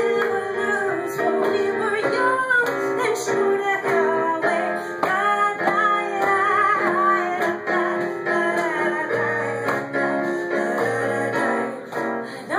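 A woman singing through a handheld microphone, holding and bending notes with vibrato, over live keyboard accompaniment.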